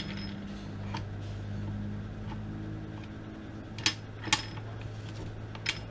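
A few sharp metal clicks from the 2005 Suzuki RM-Z250 transmission gears and shafts being turned by hand in the crankcase, the loudest about four seconds in, over a steady low hum.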